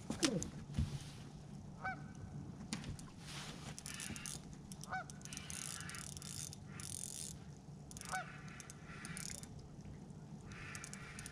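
Three short, high animal calls about three seconds apart, each a quick rise and fall in pitch, over a low steady hum, with a couple of knocks near the start.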